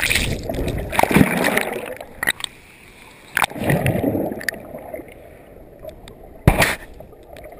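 Water splashing and sloshing in irregular bursts, with scattered clicks and one sharp knock about six and a half seconds in.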